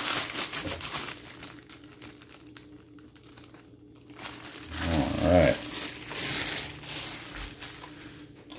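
Clear plastic wrapping crinkling as it is pulled off a frozen roast, in two spells: at the start and again about six seconds in. About five seconds in there is a brief low voice sound, the loudest moment.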